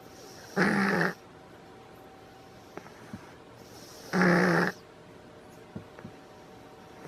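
A sleeping pet snoring: two loud snores, each about half a second long, roughly three and a half seconds apart.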